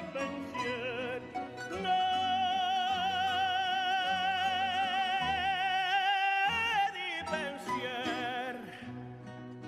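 Male soloist singing in an operatic style with strong vibrato, holding one long note for about four seconds before a falling phrase. A rondalla of plucked strings, guitars and mandolin-family instruments, accompanies him.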